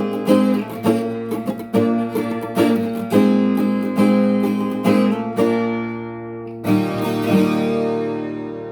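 Viola caipira, the Brazilian ten-string folk guitar, strummed by hand in a short tune of repeated chords, closing with a final strum near the end that is left to ring and fade.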